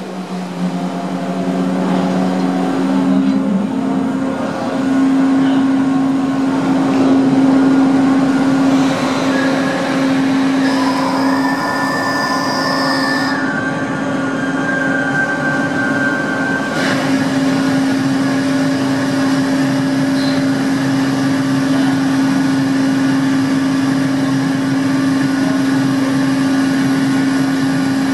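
The ferry Salish Eagle's engines and machinery running steadily: a loud, constant low hum over a noisy mechanical bed. A few higher whining tones come and go in the middle.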